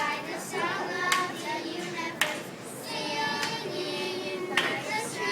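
Girls' choir singing held notes together, with a few sharp hand claps among the singing.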